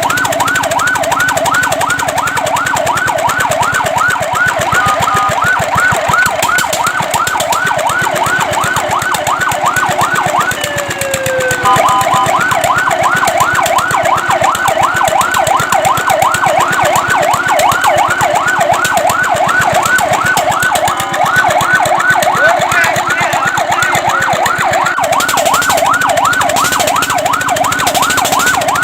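Fire truck siren in a fast yelp, its pitch sweeping up and down about four times a second. About ten seconds in it slides down once and holds a brief steady tone before the yelp resumes.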